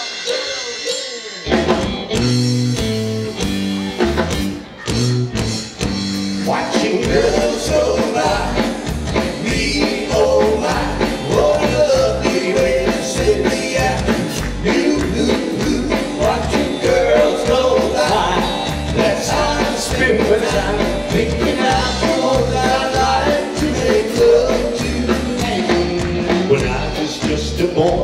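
Live rock band with electric guitars, bass guitar and drum kit starting a song: a few separate punched hits from about a second and a half in, then a full steady groove from about seven seconds.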